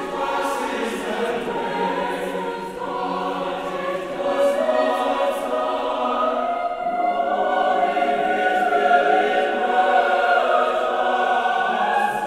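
Mixed-voice university choir singing sustained chords, growing louder about four seconds in, in a large church.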